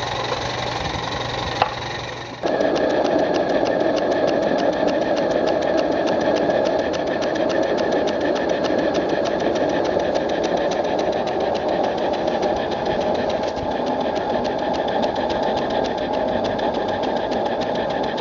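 Single-cylinder live-steam model traction engine (Maxitrak 1-inch scale Case 80 hp) running fast, a quick, even rapid beat. It gets louder and steadier a little over two seconds in.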